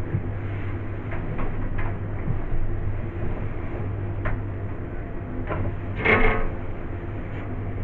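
Hands cleaning a fridge: scattered light knocks and clicks, with a short rubbing scrape about six seconds in, over a steady low hum.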